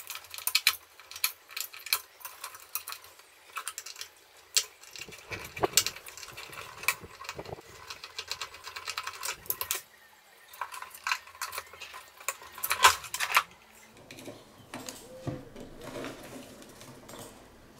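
Hands pulling and prying at the wiring and parts inside a vintage sinusoidal stimulator's chassis: irregular clicks, rattles and small metallic clatter, fewer and quieter after about 14 seconds.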